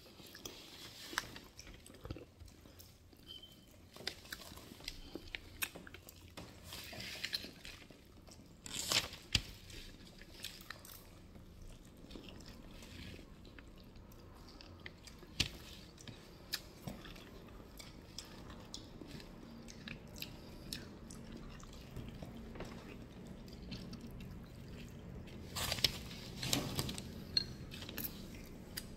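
Close mouth sounds of a person eating boiled lamb neck chops by hand: chewing and wet smacking, with sucking and licking of the fingers. A few louder bursts about nine seconds in and near the end.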